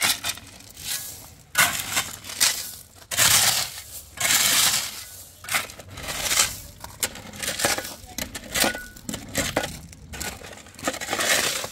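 Long-handled shovel digging and scraping into loose gravel, the stones crunching and rattling with each stroke, in repeated, irregular strokes about a second apart.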